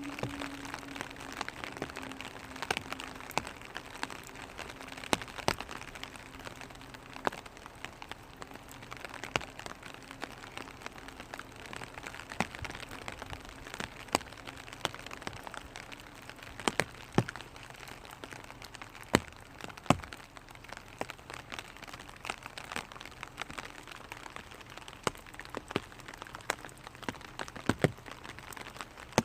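Small raindrops falling on a clear vinyl umbrella: a steady light patter with irregular, sharper single taps as drops strike the plastic canopy.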